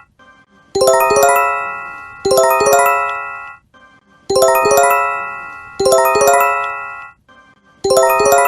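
Japanese J-Alert emergency warning chime: a quick rising run of bell-like tones, sounded twice in quick succession. The pair repeats about every three and a half seconds, each run ringing out and fading before the next.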